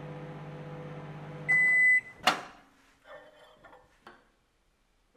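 Panasonic microwave oven running with a steady hum, which stops when the countdown ends with one half-second beep about a second and a half in. The door then opens with a sharp click, and a ceramic mug is lifted out with a few light knocks.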